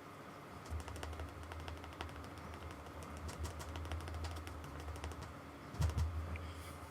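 A paintbrush dabbing and tapping acrylic paint onto a canvas: quick, irregular taps with a dull low drumming from the canvas, starting about a second in, and one louder knock near the end.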